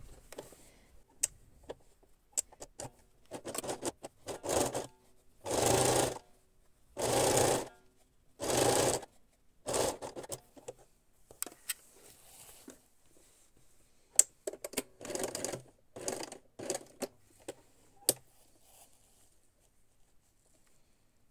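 Domestic electric sewing machine stitching in short stop-start runs, about eight of them, mostly in the middle, with sharp single clicks in the pauses while the fabric is repositioned.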